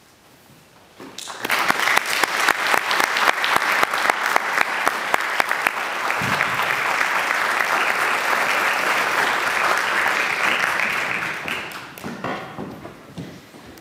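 Audience applauding: the clapping starts about a second in after a brief hush, stays dense and steady, then thins out to a few scattered claps near the end.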